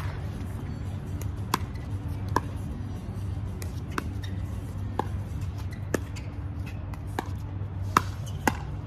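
Pickleball paddles hitting a plastic pickleball back and forth in a rally: sharp, hollow pops about once a second, some harder than others, over a steady low hum.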